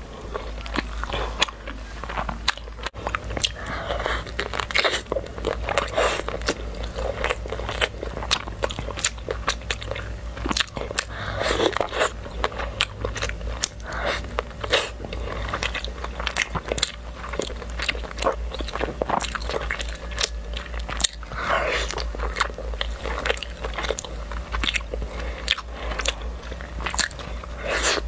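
Close-miked eating sounds: a person biting and chewing a sauce-dipped piece of food, a dense run of short, sharp mouth clicks and wet smacks.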